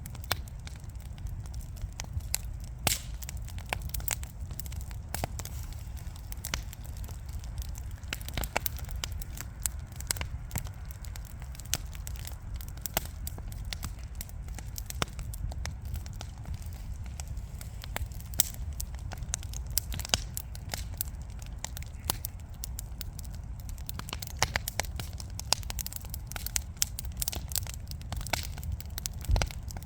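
Wood fire burning in a fireplace: irregular sharp crackles and pops over a steady low rumble of the flames, the crackling getting busier near the end.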